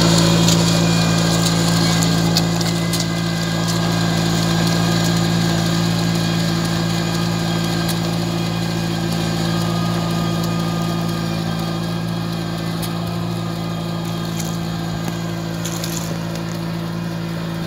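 Engine of a riding rice transplanter running steadily at a constant speed while planting in a flooded paddy, slowly getting fainter as the machine moves away.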